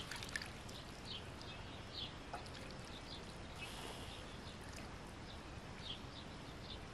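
Faint trickle of liquid dribbling out of the mouth of a tipped-over plastic drum onto grass, tailing off. Small birds chirp briefly now and then in the background.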